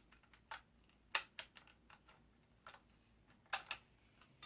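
Irregular light clicks and metallic knocks of 7.62x54R cartridges being handled and loaded into a Mosin-Nagant M91/30's internal magazine. The sharpest click comes about a second in, and two more come close together later on.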